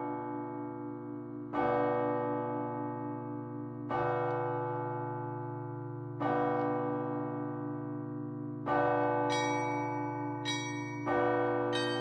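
Church bells cast by Rudolf Perner, rung by hand from a belfry ringing stand. A large bell is struck slowly, about every two and a half seconds, each stroke ringing on over a deep hum. From about nine seconds in, smaller, higher bells join with quicker strokes between the big strokes.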